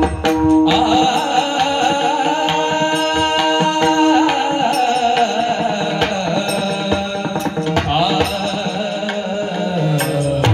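Marathi devotional song music: a wavering melody over a held note, with percussion strokes.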